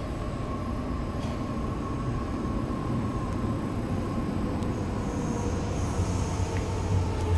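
Kawasaki–CSR Sifang CT251 metro train approaching through the tunnel, heard through the closed platform screen doors: a low rumble that grows louder toward the end, with a faint whine sliding slowly down in pitch.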